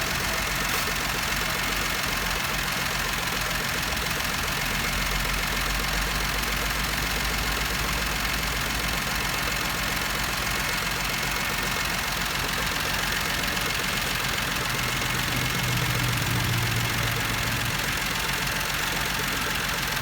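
Plymouth Duster's slant-six engine idling steadily under the open hood, growing slightly louder for a couple of seconds about fifteen seconds in.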